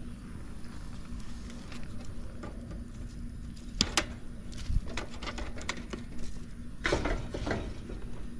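Hands and a pair of pliers handling wiring at an outdoor AC condensing unit: scattered small clicks and rustles, a sharp click about four seconds in and a few more near the end.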